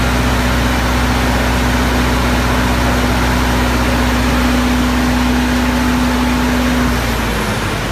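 Aircraft ground air-conditioning unit running with a steady hum and a steady mid-pitched tone; about seven seconds in the tone fades and the low hum falls away as the unit shuts itself down.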